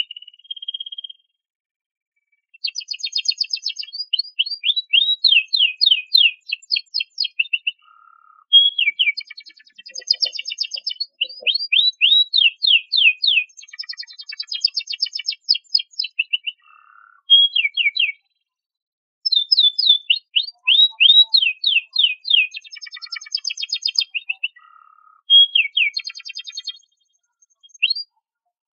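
Domestic canary singing: long phrases of fast trills and rapid runs of repeated down-sweeping notes, broken by short pauses.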